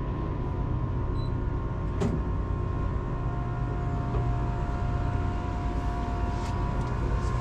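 A boat's engine running at a steady drone, with a faint steady whine above it and a light knock about two seconds in.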